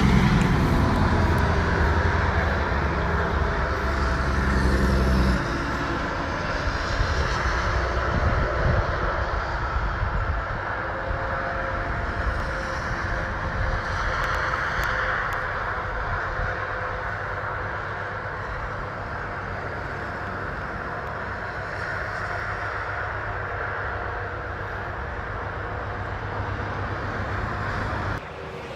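A heavy engine running steadily with a deep rumble, loudest for the first five seconds and then a little quieter.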